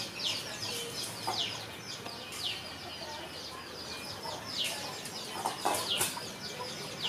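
Birds chirping: a string of short high chirps, each falling in pitch, coming irregularly about one or two a second.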